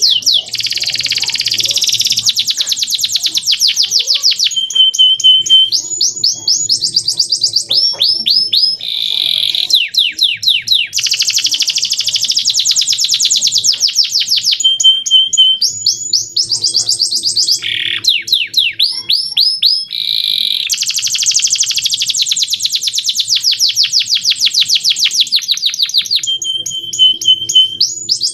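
Male domestic canary singing a long, loud song of rapid trills, quick runs of rising notes and short steady whistles. The same sequence of phrases comes round again about every ten seconds.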